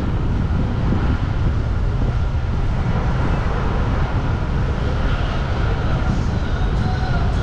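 Street traffic on a seaside road, a steady rumble mixed with wind buffeting the microphone.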